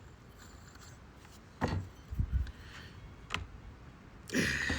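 A few light knocks and rubbing sounds from tools and parts being handled, with a louder scuffling sound starting near the end.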